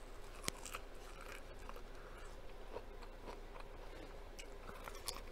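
Biting kernels off a cob of grilled corn and chewing them: a run of crisp clicks and pops, the sharpest about half a second in.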